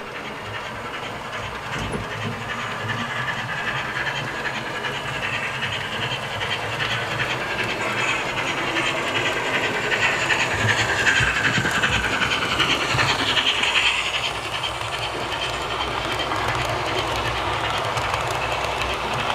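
H0-scale model steam locomotive hauling passenger coaches over model track. A steady rolling rumble and rail clatter grows as the train approaches and is loudest about halfway through as it passes.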